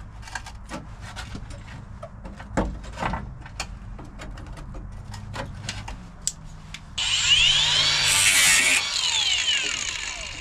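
Scattered light metal taps and knocks from work on a car's rusted sheet-metal floor. About seven seconds in, a loud harsh metal scraping or cutting noise with a squeal that sweeps up and down in pitch lasts about two seconds, then trails off.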